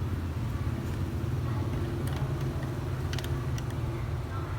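Steady low rumble, like a running motor or passing traffic, with a few faint light clicks about two and three seconds in, typical of small laptop parts being handled.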